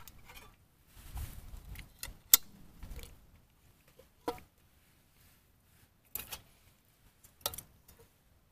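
Metal camp cookware handled: a pot and lid and a spoon clinking and knocking, five or so separate sharp clinks a second or two apart, with low handling rustle between.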